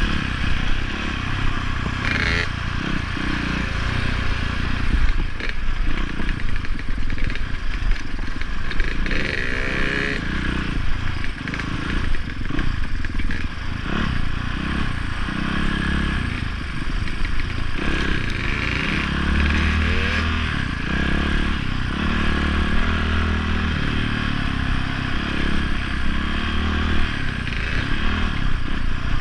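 Dirt bike engine running while being ridden on a rough trail, its note rising and falling with the throttle.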